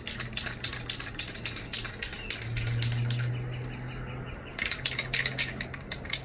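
Aerosol spray paint can being shaken, its mixing ball rattling in quick, even clicks, several a second, as the paint is mixed before spraying. A steady low hum runs underneath.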